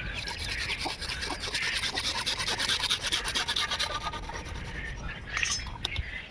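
Quick, even rasping strokes of a hand tool working against PVC pipe for about four seconds, followed by a few sharper scrapes.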